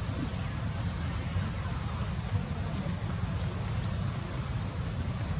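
Steady chorus of insects: a high buzz that swells and fades about once a second, over a low, even background rumble.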